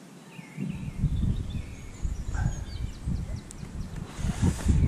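Wind buffeting the microphone in uneven gusts from about a second in, with small birds chirping faintly behind it.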